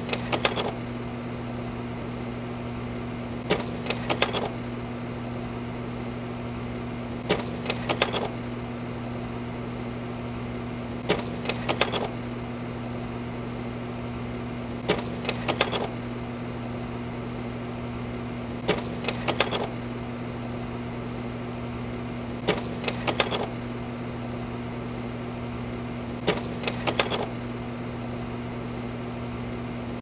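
Slide projector running with a steady hum, its slide-change mechanism clacking about every four seconds. Each change is a sharp click followed by a quick run of smaller clicks, heard about eight times.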